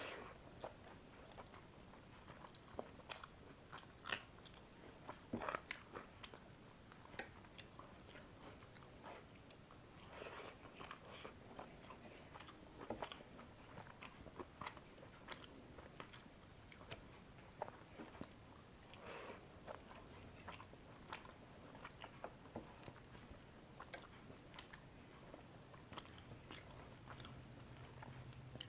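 A person chewing and biting food close to the microphone: scattered soft clicks, smacks and small crunches at irregular intervals.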